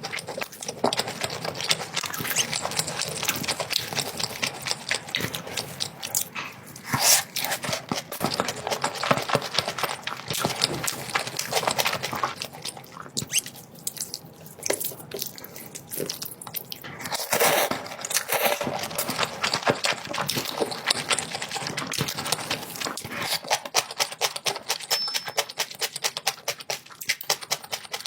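Close-miked eating: wet chewing with a dense run of small mouth clicks and a few louder bursts.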